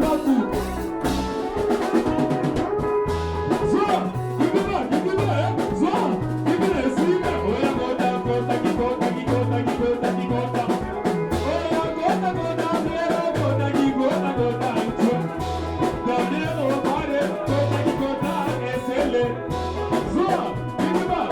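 Upbeat dance music with brass horns over a repeating bass line and drum kit.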